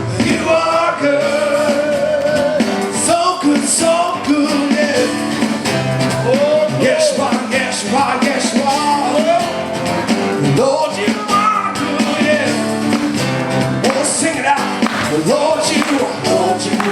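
Live gospel worship band playing, with voices singing over it and cymbal crashes, twice a few seconds in and again near the end.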